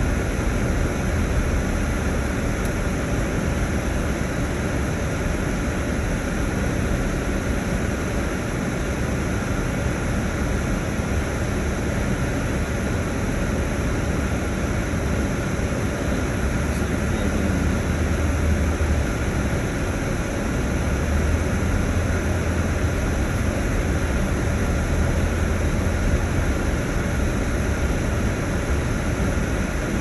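Steady rumble of a vehicle driving, engine and road noise heard from inside the cab.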